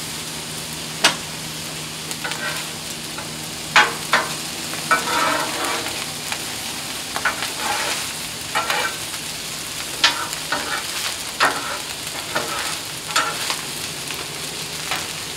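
Fried rice sizzling on a Blackstone steel flat-top griddle, with a metal spatula scraping and clacking against the griddle surface at irregular moments as the rice is turned.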